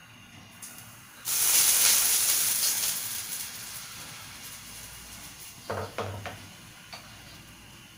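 Pancake batter hitting hot oil in a wok, sizzling loudly at once and slowly dying down over several seconds. A few short knocks come about six seconds in.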